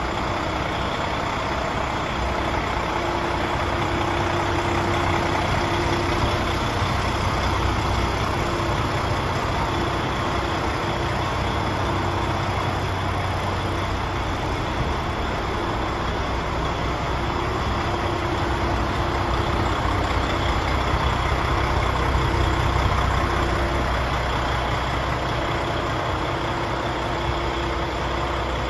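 PACCAR MX six-cylinder diesel engine of a DAF XF105 tractor unit idling steadily.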